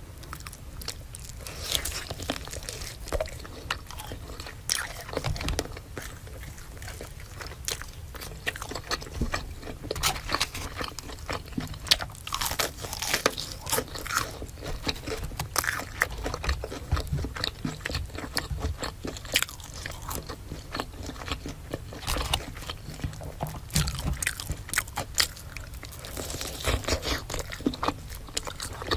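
Close-miked biting and chewing of crispy fried food, with many sharp, irregular crunches.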